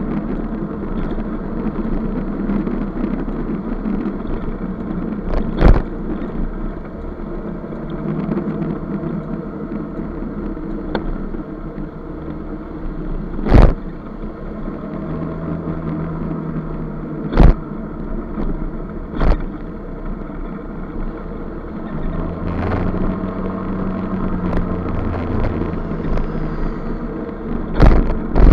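Scooter engine running at cruising speed with road and wind noise, heard from a camera mounted on the bike, its pitch shifting now and then with the throttle. A few sharp knocks stand out above the steady noise.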